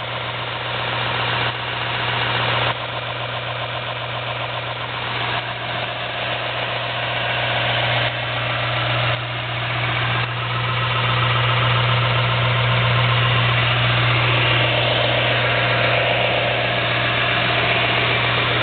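JET 6-inch by 48-inch belt and 10-inch disc combination sander running with no workpiece: a steady motor hum under the whir of the moving belt and disc, growing somewhat louder in the second half.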